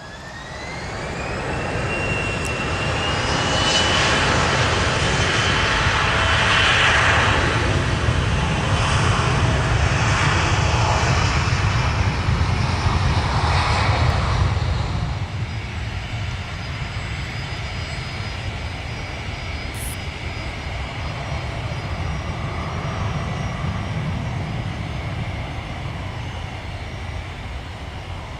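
Airplane engines running up to high power with a whine that rises in pitch during the first few seconds. They run loud for about ten seconds, then drop to a lower, steady noise.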